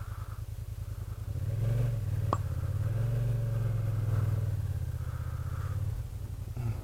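Kymco AK550 maxi-scooter's engine running at low road speed. It swells a little from about a second in and eases back near the end.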